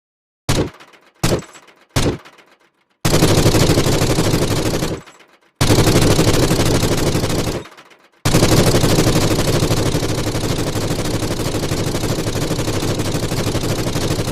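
Tommy gun (Thompson submachine gun) sound effect: three single shots in the first two seconds, then rapid automatic fire in bursts of about two seconds each, the last burst running on for several seconds.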